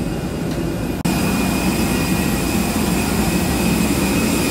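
Jet aircraft noise: a steady rush with a thin high whine, stepping louder about a second in.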